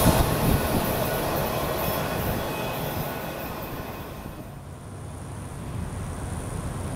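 A train's wheel squeal and rolling noise dying away over the first four seconds as it recedes down the track. After that comes a quieter outdoor background with a low steady rumble.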